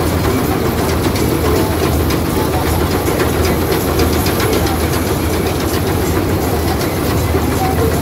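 Combine harvester working in standing rice: its engine runs steadily under load, with a fast, even clatter from the cutting header and threshing machinery.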